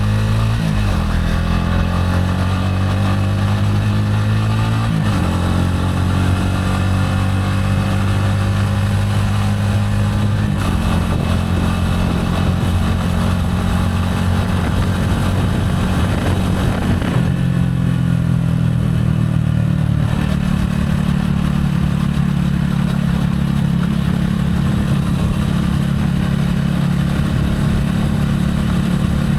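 Gilera AC4 motorcycle engine running under way, its pitch climbing and stepping several times as the rider works the throttle and shifts gears.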